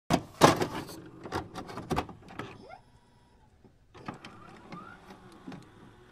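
Electronic glitch sound effects: a fast run of sharp clicks, crackles and short sweeps, a pause of about a second, then a second, quieter run of clicks.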